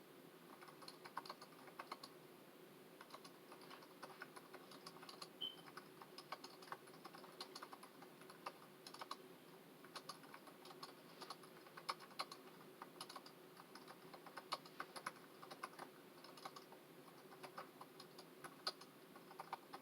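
Typing on a computer keyboard: quiet, irregular key clicks in quick runs with short pauses between them.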